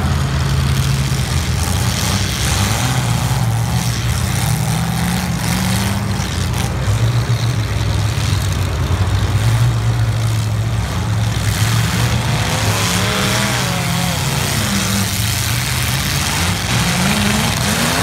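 Several demolition derby cars' engines running and revving together, a loud continuous engine mix whose pitch keeps rising and falling as the drivers accelerate and back off.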